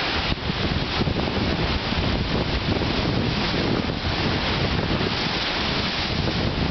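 Strong gusting wind buffeting the microphone with a heavy low rumble, over wind-driven lake waves washing and breaking against a log dock and pebble shore.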